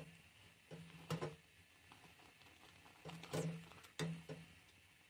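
Silicone spatula stirring and scraping against a saucepan of boiling milk and sugar as it is cooked down to thicken, heard as a few faint short scrapes.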